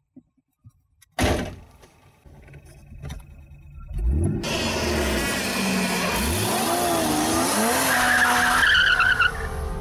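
Car revving hard as it pulls away, the engine pitch climbing twice with a gear change in between, and tyres squealing near the end. A sudden loud sound comes about a second in, just before the revving.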